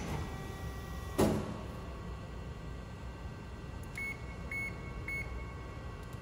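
Amada FBD-5020 hydraulic press brake humming steadily with its hydraulic unit running, with a sharp clunk about a second in. Near the end come three short beeps from the control panel keypad as buttons are pressed, about half a second apart.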